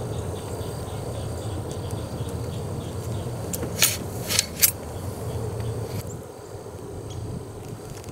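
Steel ramrod clinking against the barrel of an M1842 rifle musket while it is loaded: three sharp metallic clinks in quick succession about four seconds in, over a steady low background rumble.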